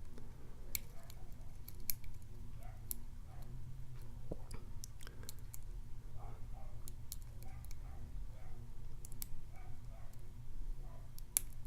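Lock pick and tension wrench working the pins of a Morris padlock's 5-pin brass cylinder: faint scraping with scattered small clicks.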